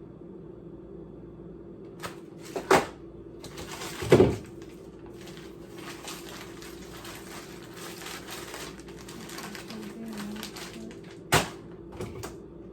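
Household handling noise: three loud sharp knocks or bangs and some smaller clicks, with rustling between them, over a steady low hum.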